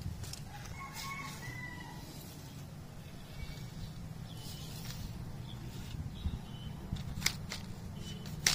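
Outdoor pond-side ambience with a steady low background noise and faint bird calls, the first about a second in. Near the end come a few sharp clicks as a telescopic fibreglass fishing rod is handled and its sections pulled out.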